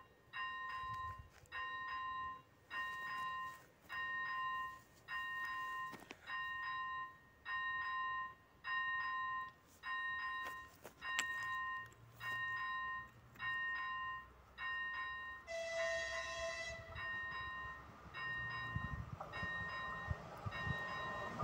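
Electronic level-crossing bell (AŽD ZV-01) ringing: a steady repeating electronic tone, about one ring a second, warning of an approaching train. About 16 s in, a train horn sounds once for about a second and a half, from the approaching Class 814 Regionova diesel unit. The train's rumble grows near the end.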